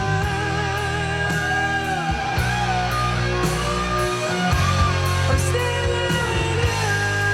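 Music with sustained melodic lines that glide in pitch over a steady, heavy bass, played back through a pure-triode 6C33C-B push-pull tube power amplifier.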